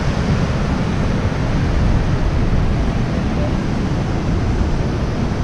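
Steady rush of whitewater from a waterfall cascading over rock ledges, with wind buffeting the microphone.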